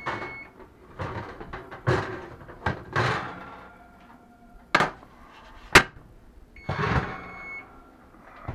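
Metal baking sheet slid off the oven rack and set down on a glass-ceramic stovetop, with the oven door shut: a series of scrapes, clanks and knocks, including two sharp ones about a second apart in the middle.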